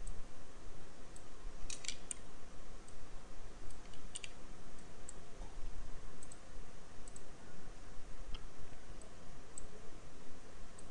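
Computer mouse clicking: a quick cluster of clicks about two seconds in and again about four seconds in, with fainter ticks scattered after, over a steady low hum and hiss.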